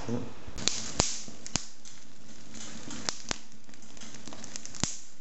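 Wood fire of sticks and kindling crackling in an open fireplace grate: sharp pops and snaps at irregular intervals over a low steady hiss.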